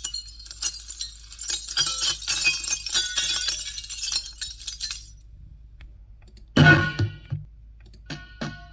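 Film sound effect of glass fragments tinkling and clinking as they scatter and settle for about five seconds, then a single heavy thud and a few sharp clicks near the end.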